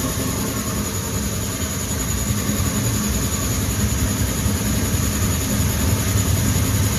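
Air compressor running steadily with a hiss of air as a motorcycle tyre is inflated to seat its bead on the rim.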